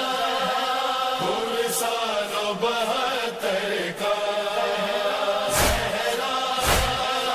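Nauha (Shia mourning lament) soundtrack: a wordless chant of layered, held voices. About five and a half seconds in, heavy thumps join it, about one a second.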